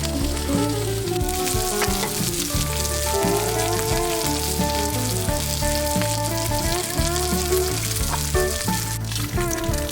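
Food frying and sizzling in a hot pan, a steady crackling hiss, under background music with a repeating bass line and melody.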